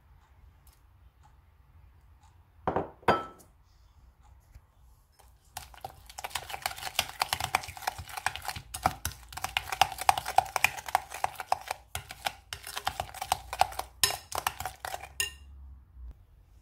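Metal spoon beating eggs into creamed butter and sugar in a ceramic bowl: a fast, dense clatter of clinks against the bowl, starting about five and a half seconds in and stopping shortly before the end. Two short knocks come about three seconds in.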